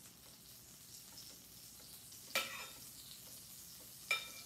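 Butter sizzling faintly in a skillet, with a spoon clinking sharply twice against a glass bowl, about two and a half and four seconds in.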